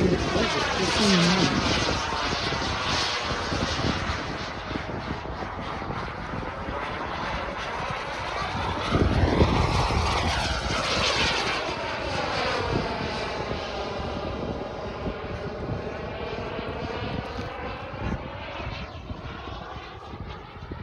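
Scale RC SAAB 35 Draken jet model in flight: a continuous rushing jet sound that swells to its loudest as the model passes about nine seconds in, then slowly fades as it flies away.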